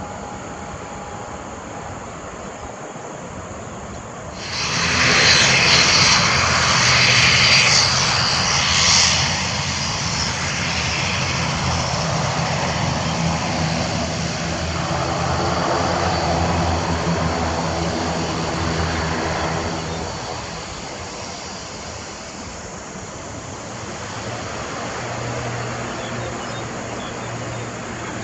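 A UNI Air ATR 72-600's twin turboprop engines and propellers, heard close as the airliner taxis past and lines up. About four seconds in the propeller noise turns suddenly loud for some five seconds, then settles into a steady propeller drone with a pitched hum. It eases off at about twenty seconds and builds again near the end.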